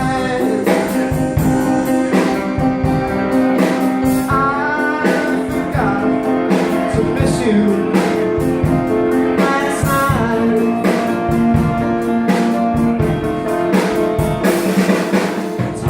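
Live song performance: guitar strummed on a steady beat, with a melody line over it.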